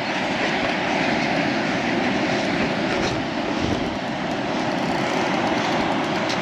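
Steady rushing noise of wind and surf, with no distinct pitch or clicks.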